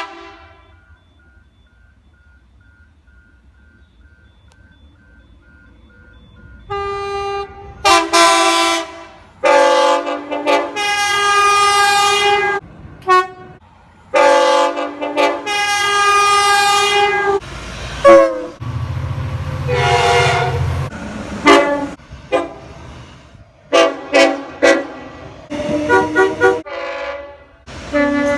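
A string of train horn blasts, multi-note chords, some held for a second or two and others short toots, starting about seven seconds in and coming again and again. Before them, several seconds of quiet with a faint repeated beep. A low rumble sits under one of the blasts about two-thirds of the way through.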